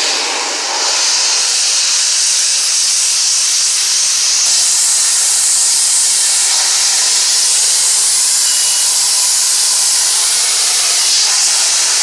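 Self-serve car wash pressure wand spraying a jet of water onto a minivan's seatbelt and door frame: a loud, steady hiss.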